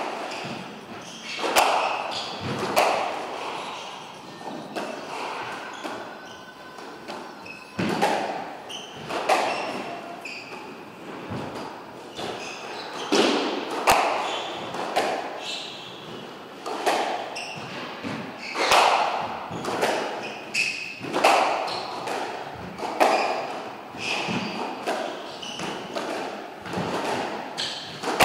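Squash rally: the hard rubber ball struck by rackets and smacking off the court walls, sharp hits at irregular intervals of about one to two seconds, each ringing in the enclosed court, with a lull a few seconds in.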